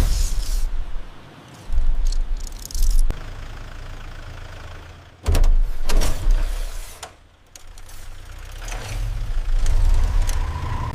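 Action sound effects: a deep rumble broken by several sudden heavy mechanical hits, with whooshing hiss building toward the end.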